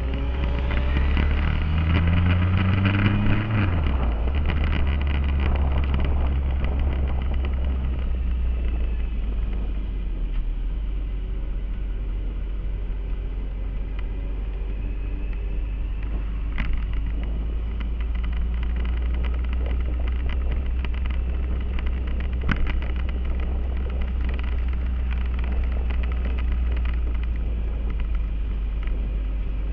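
Motorcycle engine accelerating with its pitch rising, a gear change about four seconds in, then running steadily at cruising speed under a constant low rumble. Two brief clicks come midway.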